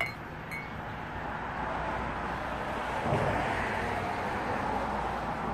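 Road traffic. One vehicle passes, swelling to its loudest about three seconds in, over a steady low traffic hum. Two light clinks come near the start.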